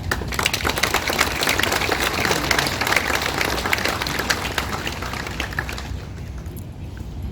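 Crowd of people applauding, the clapping dying away about six seconds in.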